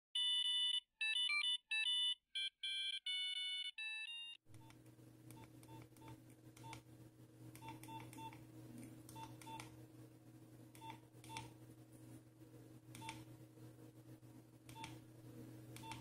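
A short electronic melody of clean beeping notes that stops after about four and a half seconds. Then come the keypad tones of a Nokia 5140i mobile phone being navigated: irregular key clicks, each with a short beep, over a steady low hum.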